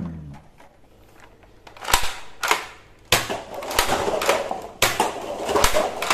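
Toy foam-dart blaster with a drum magazine firing a run of sharp shots starting about two seconds in. Darts hit a stack of paper cups, which clatter as they fall.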